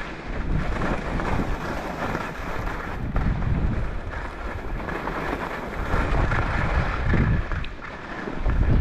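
Wind buffeting the microphone of a helmet-mounted camera in low, rumbling gusts that swell and fade every second or two. Under it, a steady hiss of skis scraping over chopped, packed snow.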